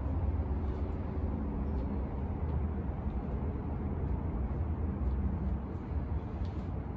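Steady low rumble of outdoor background noise, with a few faint light ticks over it.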